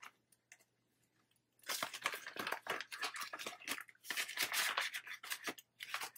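Paper banknotes and a clear plastic binder pouch rustling and crinkling as a stack of cash is handled, starting about a second and a half in after a few faint clicks.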